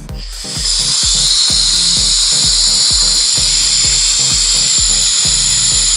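Compressed air hissing steadily from a Nex Flow high-force air jet whose rear air-amplifying inlet is covered, so it blows on compressed air alone. The hiss comes on about half a second in, over background music with a steady beat.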